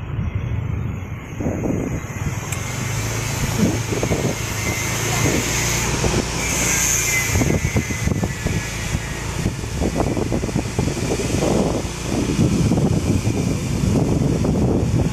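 Outdoor street ambience dominated by a motor vehicle engine running close by, with voices in the background that grow stronger near the end.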